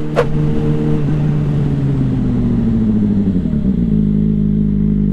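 Suzuki GSR 600's inline-four engine under way, its revs falling smoothly for a couple of seconds as the throttle is rolled off, then holding steady at lower revs. A short sharp click sounds about a quarter-second in.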